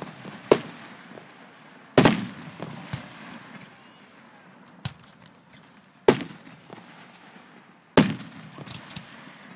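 Aerial fireworks shells bursting: loud bangs about two, six and eight seconds in, with smaller pops between, each followed by a rumbling echo.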